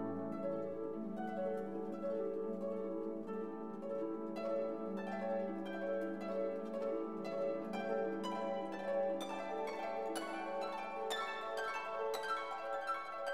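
Instrumental background music of quick plucked-string notes over held tones.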